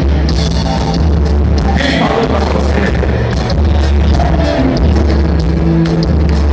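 Live samba band striking up, with a heavy bass line, guitars and steady percussion hits.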